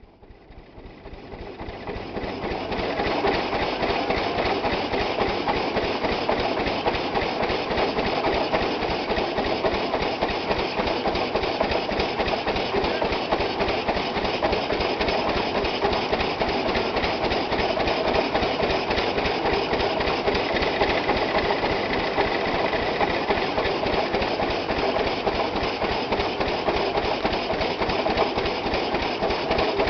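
A belt-driven threshing machine and the two-cylinder Rumely OilPull 20-40 tractor powering it, running together with a steady, fast, even clatter as sheaves of grain are fed in. The sound fades in over the first few seconds.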